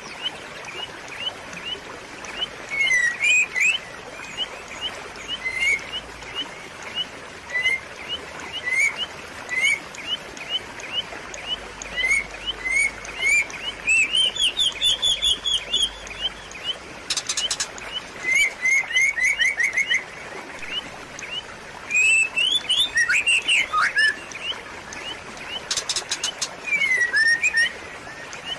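Small birds chirping, short notes repeated over and over with quicker runs of chirps now and then, over a steady trickle of flowing water.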